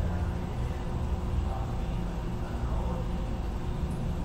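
Steady low background rumble with no distinct events, like distant traffic coming in through an open window.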